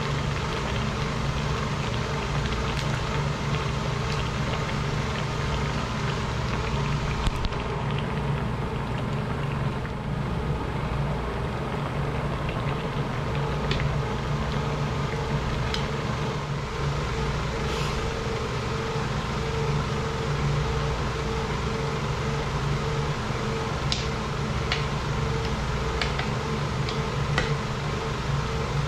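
Steady mechanical hum from a running machine, with a few light clinks of a metal spoon against an aluminium pan, most of them near the end.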